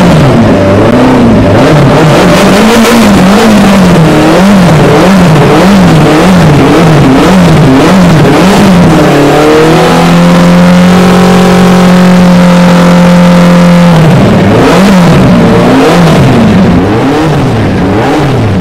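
Superbike engine revved hard and loud with rapid repeated throttle blips, about one and a half a second. About ten seconds in it is held at steady high revs for roughly four seconds, then blipped again, and it drops back to idle near the end.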